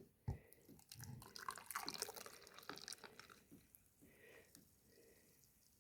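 A light knock, then hot milk poured from a frother jug into a mug over a hot chocolate bomb, faint, for about two seconds.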